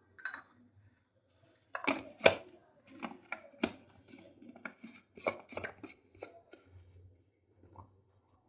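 Irregular sharp clicks and knocks of a blender jar and its lid being handled and fitted onto the base, about a dozen over four or five seconds; the motor is not yet running.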